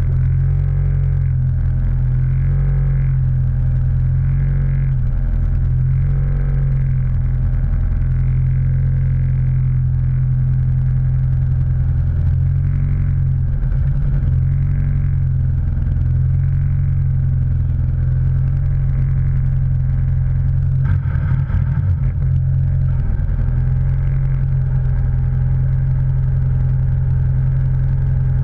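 A vehicle engine running at a steady speed, a continuous low drone, with a few brief knocks or rattles about three-quarters of the way through.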